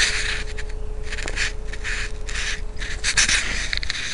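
Scraping and rubbing handling noise on a keychain spy camera's tiny built-in microphone, in short irregular bursts about half a second apart, as the camera is set down and adjusted. A faint steady hum stops about three seconds in.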